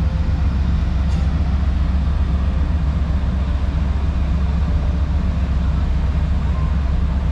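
Wind buffeting the microphone on the open top deck of a ship under way: a loud, steady low rumble with a rushing hiss above it.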